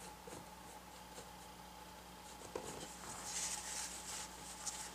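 Paintbrush stroking paint onto a painted board: faint scratchy brushing, a little stronger in the second half.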